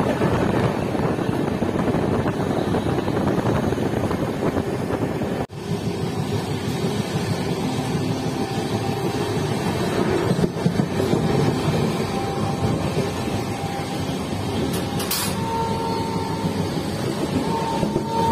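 Steady running noise of a passenger train coach at about 65 to 70 km/h: wheels on the rails and rushing air at the coach's doorway. It drops out for an instant about five seconds in, and there is a short sharp click near the end.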